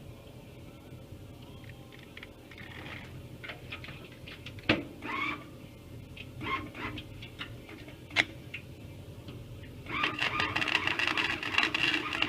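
A few scattered clicks and two sharp knocks, then about ten seconds in a 90-amp flux-core wire welder strikes an arc and crackles steadily.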